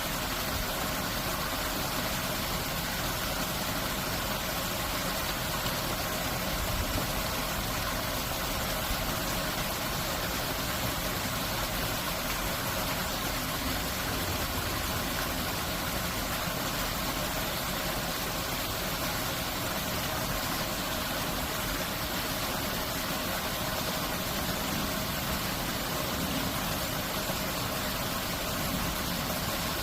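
Steady rushing of stream water spilling through a stone floodgate, an even wash of noise that holds without change.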